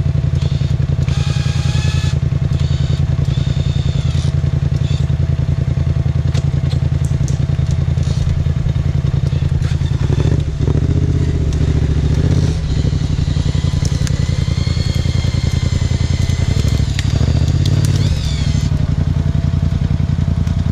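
Quad (ATV) engine running close by, a loud, steady low rumble. Its revs rise and fall around the middle and again near the end, with higher engine whines on top at the start and in the second half.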